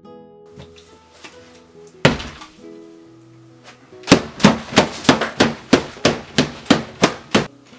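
Light plucked-string music, then one loud smack about two seconds in. A couple of seconds later comes a rapid run of about a dozen loud thumps and smacks, roughly three a second, as arms are slammed down and thrashed across a cloth-covered dinner table, knocking the plate and food about.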